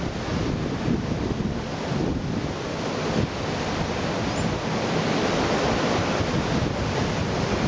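Surf washing on a beach, with wind buffeting the microphone; the wash swells a little about halfway through.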